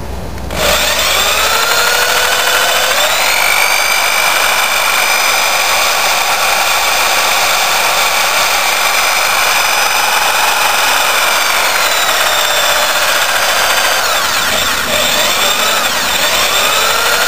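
Electric drill spinning a 180 V DC permanent-magnet treadmill motor, which is being driven as a generator. The drill whines as it speeds up about half a second in, runs steady at high speed, then slows and speeds back up near the end.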